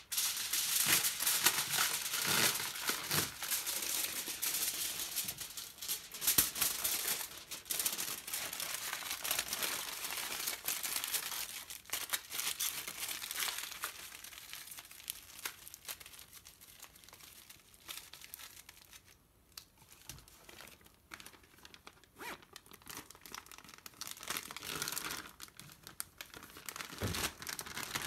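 Aluminium foil being pulled from its roll and crinkled as it is wrapped tightly around a burger, dense crackling that is loudest in the first half and thins out later. Near the end, a plastic zip-top bag rustles as the wrapped burger goes into it.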